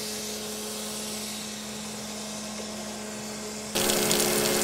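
Crankshaft grinding machine running with a steady hum. Near the end the sound jumps suddenly to a louder hiss of coolant flowing over the grinding wheel and the crank journal.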